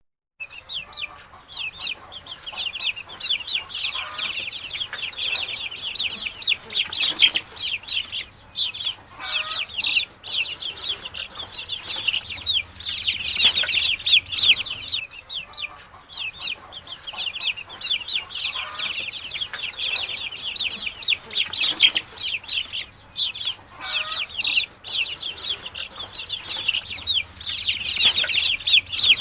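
A brood of chicks peeping continuously, many rapid high-pitched chirps overlapping, with a hen's lower clucking every few seconds.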